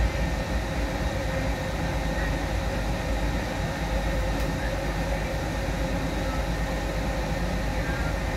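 Steady cabin noise inside a Higer electric minibus under way: an even, low rumble from the road and running gear, with a few faint steady tones over it.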